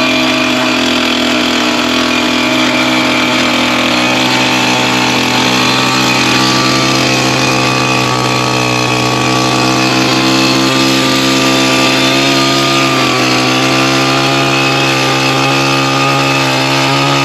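Powered ice auger boring a fishing hole through lake ice, its motor running at a steady pitch.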